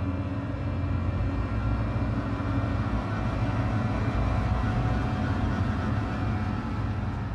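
Dark ambient film score: a low rumbling drone with many sustained tones layered above it, swelling slightly in the middle.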